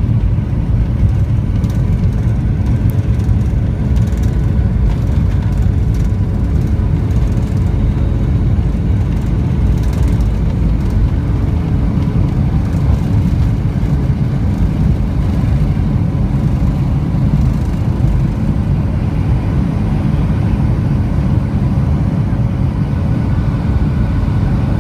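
Cabin noise of a Boeing 757-300 on its takeoff run and climb-out: the jet engines at takeoff power, a loud steady noise with a heavy low rumble and a few faint steady tones.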